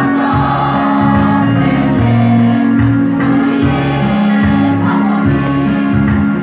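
Mixed choir of men and women singing a Christian song together, with steady held notes and a moving low part.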